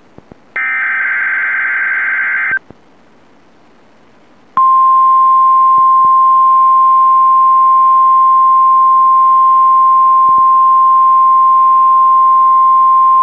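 NOAA Weather Radio test transmission: a two-second screech of SAME digital header data, then after a short pause the steady 1050 Hz warning alarm tone, one loud unbroken pitch held for about nine seconds. It is the tone that activates weather alert receivers.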